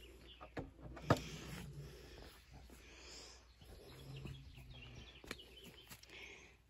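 Quiet outdoor ambience with a few soft knocks and rustles from a handheld phone being carried while walking, and faint bird calls in the background.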